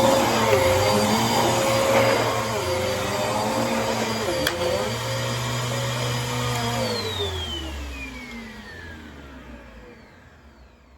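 Dirt Devil Breeze cyclonic vacuum cleaner running with a steady whine, with one sharp click about four and a half seconds in. About seven seconds in, its motor winds down, falling steadily in pitch and fading almost to nothing.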